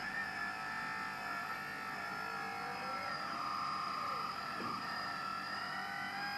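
Electric motors and hydraulic pump of a radio-controlled hydraulic construction model whining steadily, with the pitch of some whines sliding up and down about halfway through as the controls are worked.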